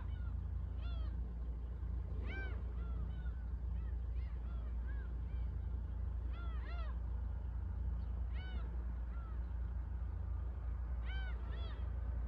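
Gulls calling over the shore: short, arched, rising-and-falling cries, often in pairs, repeated every second or two, over a steady low rumble.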